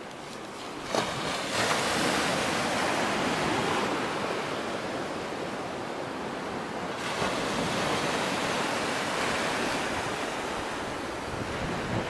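Black Sea surf washing and breaking against a stone shore ledge, a continuous rushing that grows louder about a second in and swells and eases with each wave. Wind buffets the microphone.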